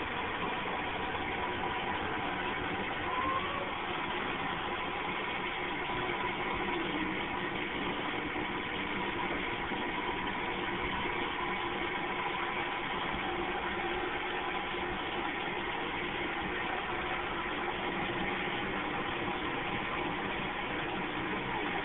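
Steady machine hum with a rushing hiss from a dog-wash tub's hose sprayer running.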